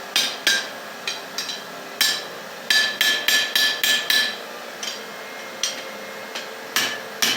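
Hand hammer striking a hot steel rod to curl it into a forged scroll: irregular blows, each with a short metallic ring, with a quick run of about half a dozen strikes in the middle.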